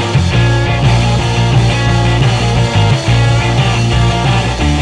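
Rock music with guitar, playing as a soundtrack, with a steady beat and a low bass line that shifts note every second or so.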